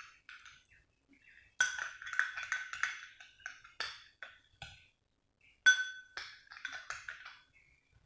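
A spoon clinking against a glass bowl while stirring a thick lotion mixture: irregular groups of short, ringing clinks, the loudest a little before six seconds in, with brief pauses between groups.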